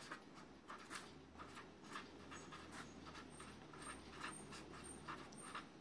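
Faint felt-tip pen strokes scratching on paper as words are handwritten, in short irregular strokes.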